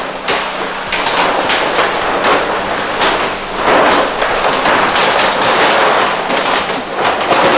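A large sheet of paint protection film crackling and rustling as it is held up and flexed, with the hiss of a hand pump sprayer misting water onto it. The sound is dense, irregular crackling.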